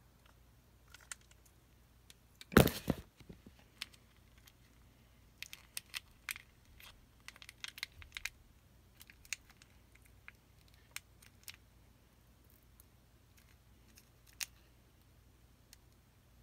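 Plastic sauce packets being handled: scattered small clicks and crinkles, with one loud knock about two and a half seconds in.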